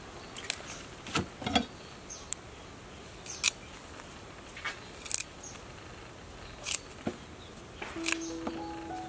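Fresh Chinese broccoli stalks being stripped and peeled with a knife: crisp, irregular snaps and scrapes as the skin and leaves come off the stems, roughly one or two a second.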